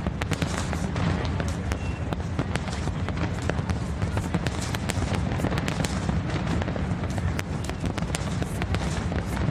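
Fireworks crackling and popping continuously, a dense run of many sharp cracks over a steady low rumble, with music in the mix.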